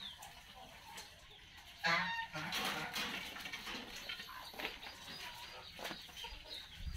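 A chicken clucking about two seconds in: a short pitched cluck followed by about a second of rougher squawking.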